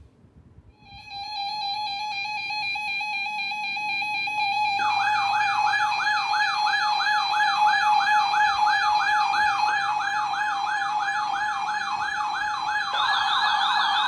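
Electronic siren tones. A steady tone starts about a second in. A fast rising-and-falling wail, a little under three cycles a second, joins about five seconds in, and a higher, faster warble is added near the end.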